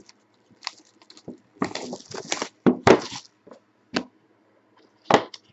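Hands opening a cardboard box of trading cards and its wrapping: short scratchy rustles and crackles in irregular bursts, the loudest about three seconds in and again near the end.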